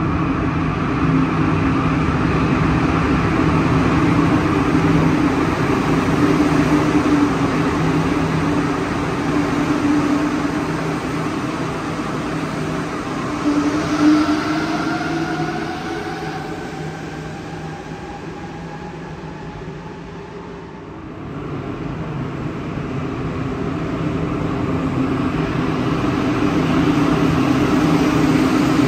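Alstom rubber-tyred metro train on Santiago Metro Line 2 running through the station with a steady hum. Around the middle, a motor whine glides in pitch as the train changes speed. The noise eases off about two-thirds of the way in, then builds again.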